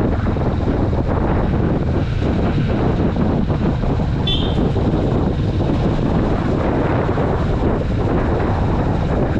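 Kawasaki Vulcan S motorcycle's parallel-twin engine running steadily under way, mixed with wind noise on the camera microphone. A brief high-pitched tone sounds once about four seconds in.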